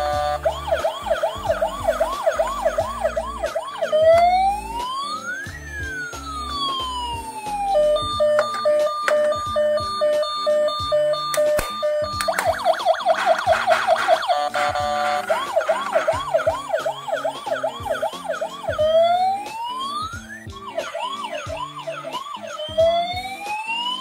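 Toy ambulance's electronic siren sound chip cycling through siren patterns: fast yelping sweeps, slow rising-and-falling wails, and a steady held tone in the middle, over background music.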